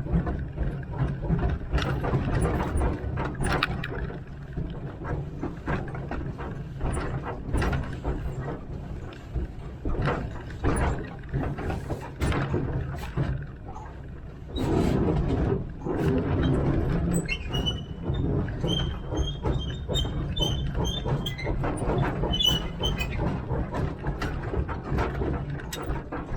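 1927 Vulcan 0-4-0T narrow-gauge steam locomotive running along the track, heard from the cab: a steady low rumble with rattling knocks. From about two-thirds of the way through, the wheel flanges squeal high-pitched for several seconds on the curve.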